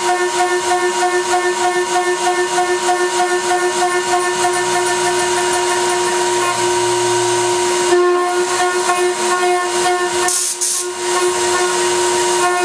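CNC router spindle milling an aluminum plate with a small end mill: a steady, high-pitched cutting whine with overtones that wavers in a regular pulse as the cutter moves. A brief hiss sounds about ten seconds in.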